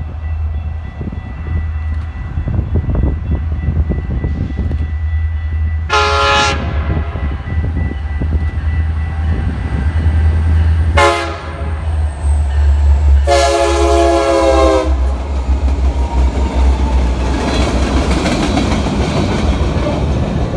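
Nathan K3LA five-chime air horn on an EMD GP60M-3 diesel locomotive sounding three blasts: long, short, then long. Under them runs the heavy low rumble of the locomotives' diesel engines, and wheel noise on the rails builds near the end.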